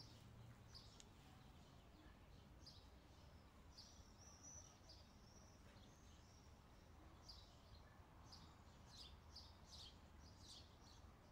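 Near silence outdoors with faint birds chirping: scattered short high chirps and a brief whistle, coming thicker in the second half, over a low steady background rumble.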